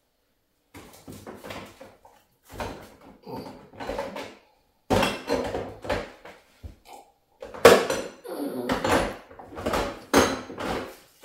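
Kitchen clatter of groceries being put away: jars, tins and containers knocked and set down in a string of irregular clunks and rattles, loudest about eight seconds in.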